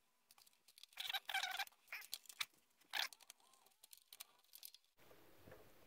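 Faint crinkling and clicking of plastic as hands handle a portable computer's case resting on bubble wrap, with the crackles densest between about one and three seconds in. About five seconds in, the sound cuts abruptly to a steady low hiss.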